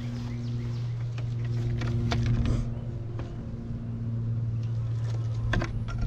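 Clicks and taps of a wax-coated plastic foundation sheet being handled and fitted into a wooden beehive frame, a few around two seconds in and a sharper one near the end, over a steady low hum.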